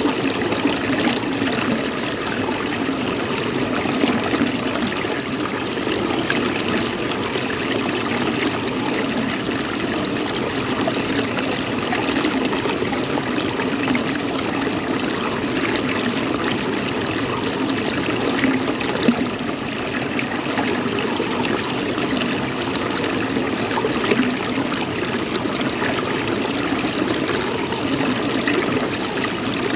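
Running water, a steady trickling flow with small splashy ticks.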